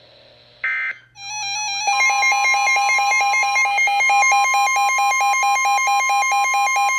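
Emergency Alert System signalling between warnings: a short burst of digital data noise just under a second in, then the loud, steady EAS attention tone, with a second pitch joining about two seconds in. It is the alert signal that opens the next snow squall warning.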